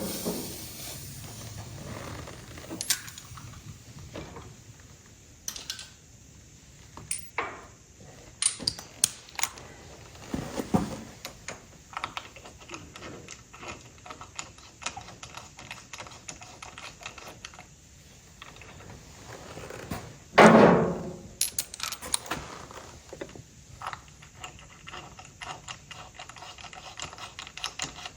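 Small metallic clicks and taps of hand tools as new spark plugs are fitted into a tractor engine, with runs of rapid clicking in the second half and one louder clatter about twenty seconds in.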